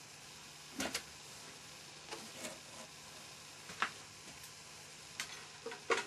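Scattered light clicks and knocks, in pairs about a second in, around two seconds in and near the end: hands handling a Bang & Olufsen Beocenter 7700 record player as its turntable lid is lifted open.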